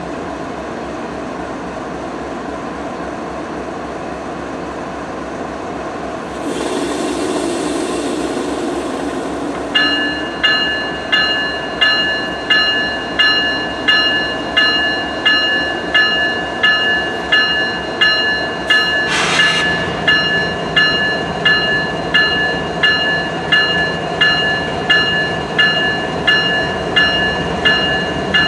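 GE ES44AC diesel locomotives idling at a standstill. About six seconds in, a rushing hiss lasts a few seconds. Then the locomotive bell starts ringing steadily, about once a second, and past halfway the engines rev up as the train starts to pull away.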